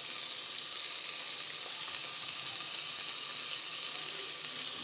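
Chopped onions and green chillies sizzling steadily in hot oil in an aluminium pressure cooker, freshly added for sautéing.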